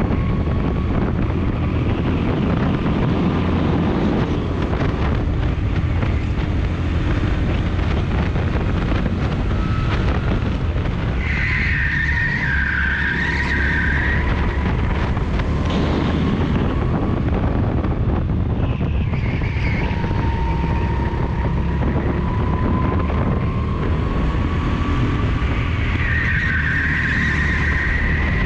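Rental go-kart engine running hard, with wind buffeting the microphone; twice, in the corners, the tyres squeal with a wavering high whine for a few seconds.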